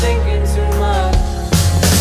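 Background music with a strong bass line and drum beat.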